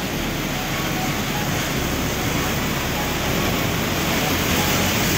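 Rough storm sea: heavy surf churning and breaking along the shore, a steady rush of noise that grows a little louder toward the end.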